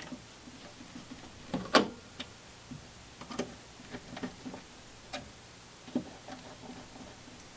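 Set screws being tightened on zinc die-cast EMT slip connectors: scattered, irregular light metallic clicks and taps, the loudest a little under two seconds in.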